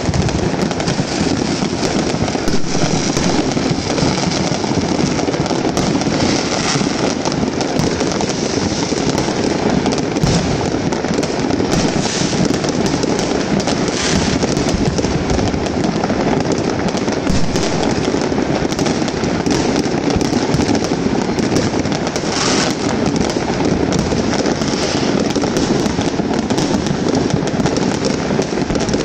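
Many fireworks and firecrackers going off at once: a dense, unbroken crackle of pops and bangs, with a few louder bursts standing out.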